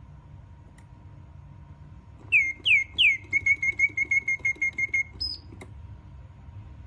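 Mechanical singing bird whistling a birdsong: three loud falling chirps, then a rapid, even trill of about a dozen notes, ending on a short higher note. A faint click comes before the song and another just after it.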